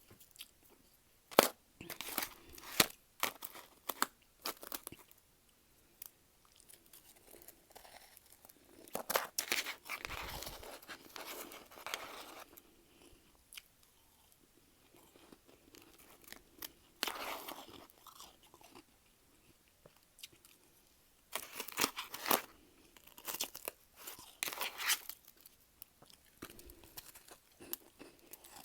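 Freezer frost being bitten and chewed close to the microphone: clusters of sharp, crackling crunches separated by quieter pauses of a few seconds.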